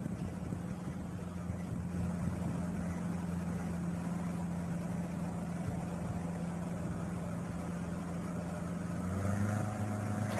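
An engine running steadily with a low, even hum, its note changing about nine seconds in.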